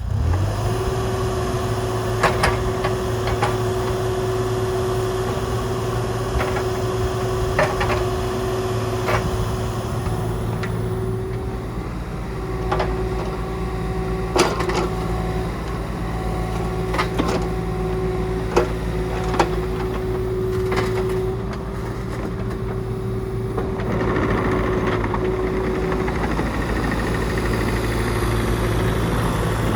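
Kubota KX040-4 compact excavator's diesel engine running steadily, with a steady whine above the engine hum and scattered sharp knocks throughout.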